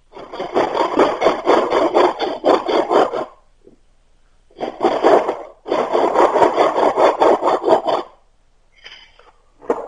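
A hand tool worked rapidly back and forth against a wooden stick, rasping into the wood, in three runs of strokes with short pauses, the middle run brief.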